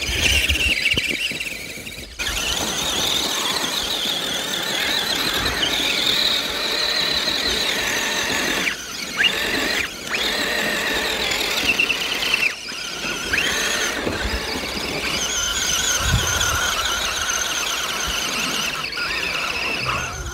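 High-pitched electric motor and drivetrain whine of a scale RC 4x4 truck, wavering up and down as its tyres spin in wet snow. The whine drops out briefly about three times near the middle.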